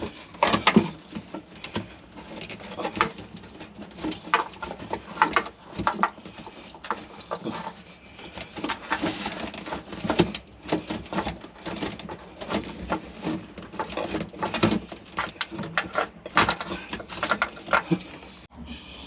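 Irregular clicks, knocks and scraping as hands work plastic bilge pumps, hose and a hose clamp into place in a tight boat bilge.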